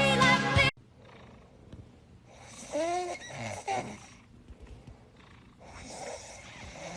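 Music cuts off under a second in. A cat yawns: a breathy exhale with a short squeaky cry that rises and falls in pitch about three seconds in, and a second breathy exhale near the end.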